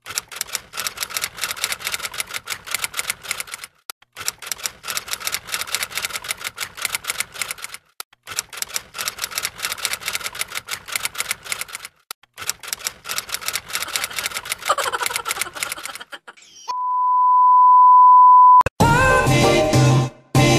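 Typewriter sound effect: rapid key clacks in four runs with short pauses between them. Then a steady high beep holds for about two seconds, growing louder. Upbeat background music starts near the end.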